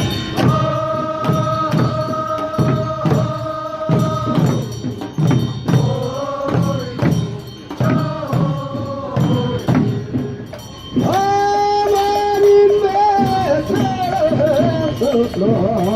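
Korean traditional funeral song sung in folk style: voices hold long notes and then sing shorter phrases over a steady percussive beat.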